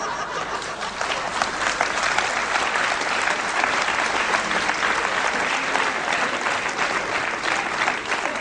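Live audience applauding a punchline: dense, steady clapping.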